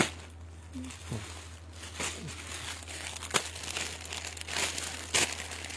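Clothes and their plastic packets being handled: irregular rustling and crinkling, with a few sharp crackles.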